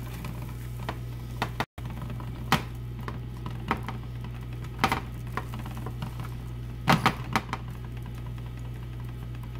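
Light taps and scrapes of quesadillas being shifted and turned by hand in a nonstick frying pan, a handful of separate knocks with the sharpest about five and seven seconds in, over a steady low hum.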